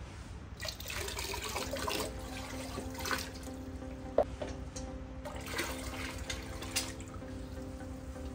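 Liquid pouring and splashing from a steel pot into a plastic tub of bluish solution, coming and going in waves. There is a single sharp knock about four seconds in.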